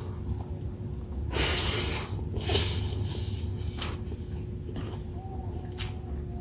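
A person eating with several short, noisy breaths or sniffs through the nose, the longest about a second and a half in, over a steady low hum.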